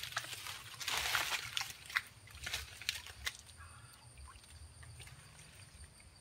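Splashing and sloshing in shallow creek water at the bank, loudest in the first second and a half, with a few sharp ticks after it, then quieter.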